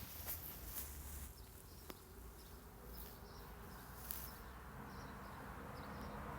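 Quiet outdoor nature ambience: an insect buzzing faintly, with a few faint bird chirps over a low steady rumble and a handful of soft clicks.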